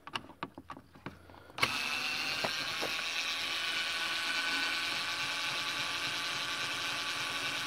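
A screwdriver undoing a screw in a car's front panel: a few separate sharp clicks, then about one and a half seconds in a steady mechanical noise starts abruptly and keeps going.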